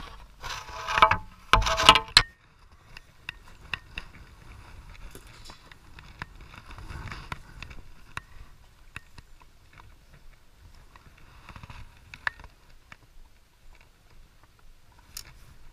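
Handling noise from an angler working a snagged branch and his fishing line: loud rough rustling for the first two seconds, then faint scattered clicks and ticks from handling the light spinning rod and reel.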